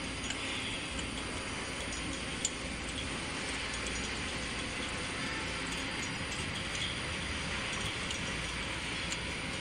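A plastic extruded-netting machine running: a steady mechanical hiss and hum, with a few faint ticks and one sharper click about two and a half seconds in.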